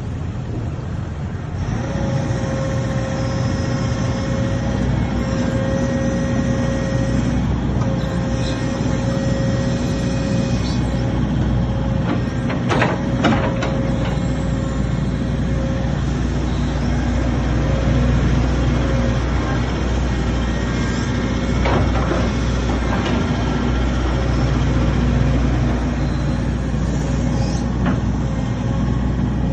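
Hitachi ZX135US-6 excavator's diesel engine running steadily, growing louder about two seconds in, with a whine held at one pitch through the first half. A few sharp knocks come through, the loudest about halfway.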